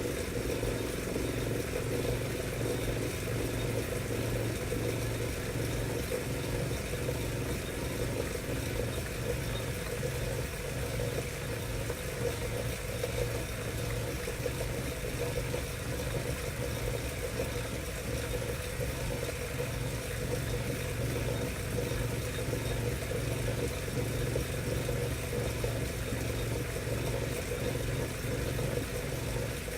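Wahoo Kickr direct-drive smart bike trainer running steadily, with a low hum that pulses regularly about once a second. This is the strange noise that the owner is documenting as a possible fault.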